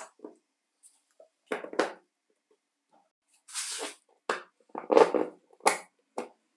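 A small DC motor being slid into and seated in the steel stator shell from an old circular saw: scrapes of metal on metal, light clicks and several sharp knocks, loudest about five seconds in.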